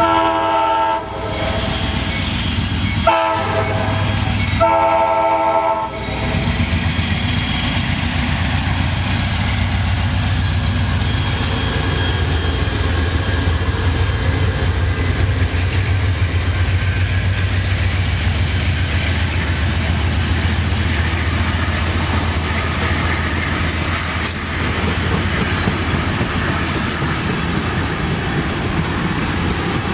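Passenger train locomotive horn sounding three blasts (long, short, long), then the bi-level passenger train rolling past with a steady rumble, a low engine drone and wheels clacking over rail joints.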